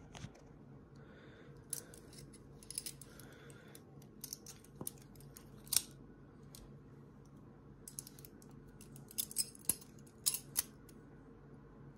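Balisong (butterfly knife) being flipped: sharp metallic clicks and clacks of the handles and blade swinging and knocking together, in irregular clusters, the loudest a little before the middle and another run near the end. A faint steady hum lies underneath.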